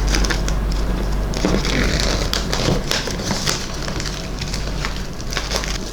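Packaging being handled and opened by hand: crinkling and rustling with many small clicks and scrapes.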